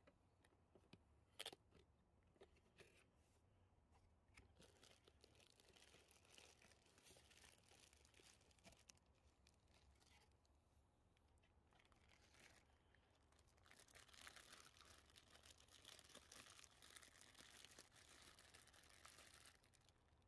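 Faint crinkling and rustling of the clear plastic bag wrapped around a new air filter as it is handled, loudest in the second half. A couple of faint clicks about a second and a half in, as the cardboard box lid is opened.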